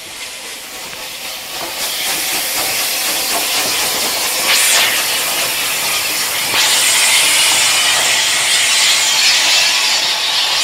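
Battle of Britain class steam locomotive 34081 moving slowly past, hissing steam. The hiss builds, with a brief sharp burst a little under halfway. A louder, steady high hiss of steam comes in about two-thirds of the way through.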